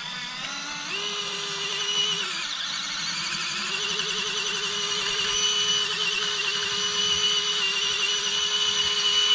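Small brushed electric motor and gear drive of an Orlandoo 1/32 Toyota Tundra micro RC crawler whining under load as the truck crawls slowly up a steep incline. The pitch steps up about a second in, dips briefly around two seconds, then holds a steady, slightly wavering whine.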